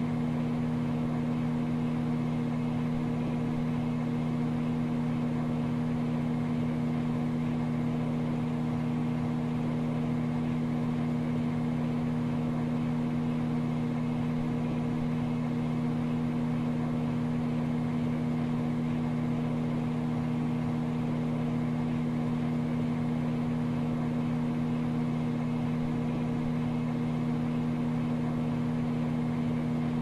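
Microwave oven running: a steady, unchanging low hum.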